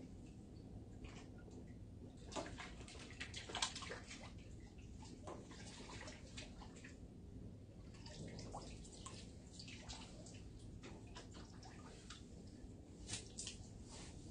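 Hooked fish splashing at the pond surface as it is played toward a landing net: faint, irregular splashes and drips, a few sharper ones about two to four seconds in and near the end.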